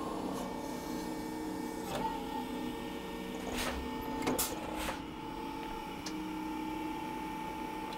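Battery-electric Scania truck running on its electric drive, a steady hum of several tones, with a higher tone joining about halfway through and a few short sharp knocks as it works.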